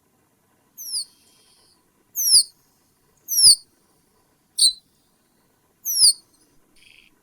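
A bird calling: five short, high notes, each sweeping sharply downward in pitch, spaced about a second apart.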